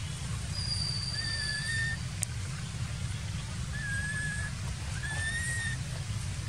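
Young macaque giving thin, high, drawn-out cries, three in a few seconds, each under a second long, over a steady low rumble.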